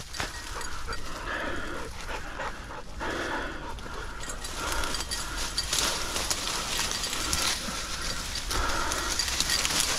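Springer spaniel panting close by, with brush and dry leaves rustling through much of the second half.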